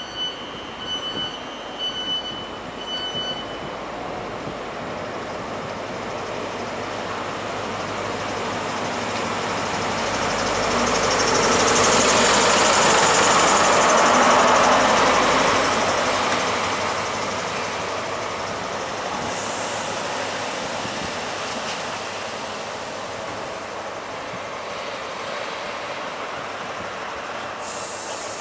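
InterCity 125 high-speed train with Class 43 diesel power cars passing through a station. The noise builds to a loud peak about halfway through as the power car goes by, then fades as the coaches roll past. A repeating electronic beep sounds about once a second at the start.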